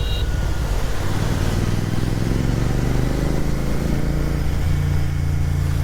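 Royal Enfield GT650 parallel-twin motorcycle engine running while riding, its pitch rising through the middle as it speeds up, over a steady rush of wind noise.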